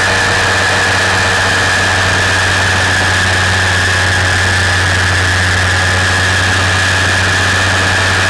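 Gyroplane's engine and pusher propeller running steadily in flight, heard from a camera mounted on the airframe: a constant low drone with a steady higher whine above it.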